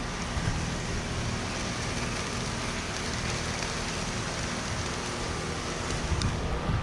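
Steady rain falling in wind from a hurricane's outer rain band, with gusts rumbling low and unevenly.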